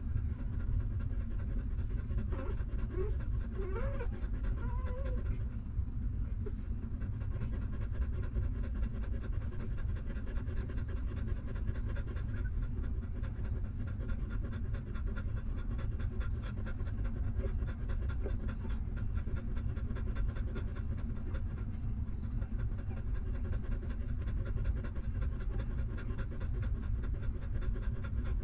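Nursing mother dog panting steadily and rapidly, close up. A few faint high squeaks from her newborn puppies come about two to five seconds in.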